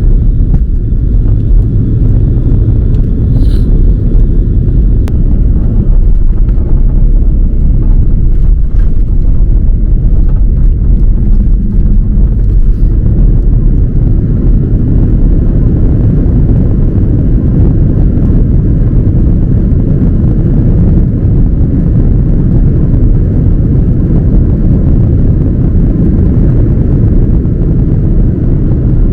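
Loud, steady low rumble inside an Airbus A330-300's cabin as the airliner lands.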